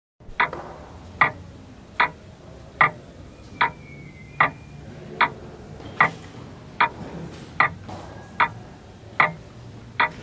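A clock ticking steadily, a little more than one tick a second.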